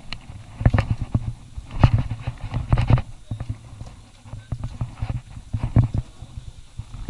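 Footsteps on a rocky trail: irregular knocks and scuffs on rock and loose stone, several a second, with heavy low thumps.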